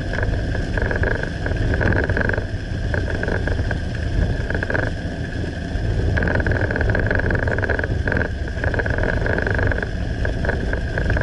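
A car's interior while driving on a highway: steady low road and engine rumble with tyre noise, plus a higher hiss that fades and returns a few times.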